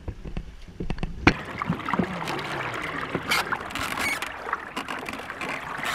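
A canoe being paddled on a river: water splashing and rushing past the hull with scattered knocks. It comes in suddenly a little over a second in, after a quieter low rumble.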